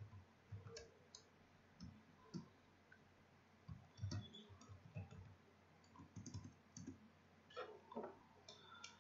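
Faint, irregular keystrokes of typing on a computer keyboard: a few short clicks at a time with gaps between them.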